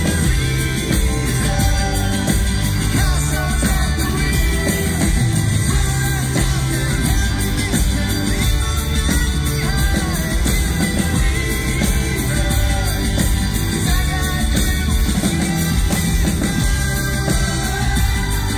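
Live rock band playing at full volume, with drums, guitars and wordless singing, picked up by a phone in the concert audience.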